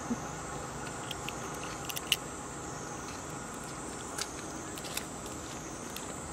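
A steady high-pitched insect drone over low background noise, with a few scattered sharp clicks and taps, the loudest about two seconds in.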